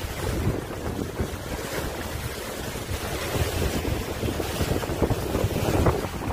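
Wind buffeting the microphone over the wash of water along the bow of a sailing yacht under sail, with a louder surge just before the end.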